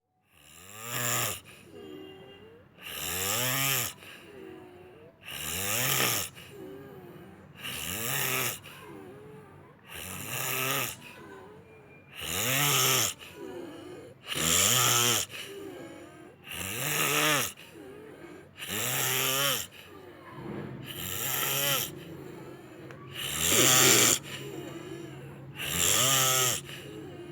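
A person snoring, one loud snore about every two to two and a half seconds. Each snore lasts about a second and rises and falls in pitch, with quieter breathing in between.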